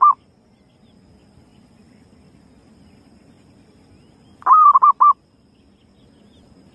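Zebra dove (perkutut) cooing as a lure call: a short phrase of quick staccato coos, the end of one just at the start and a full phrase of about four notes about four and a half seconds in.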